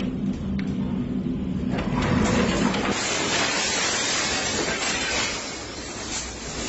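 Wind of a violent F4 tornado hitting a house with flying debris. A low rumble gives way about two seconds in to a loud, dense rushing hiss of wind and debris.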